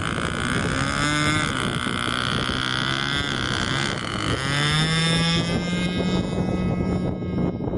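Tucano RC model plane's 10cc gasoline engine running, rising in pitch about four seconds in as the throttle opens and the plane taxis off across the grass.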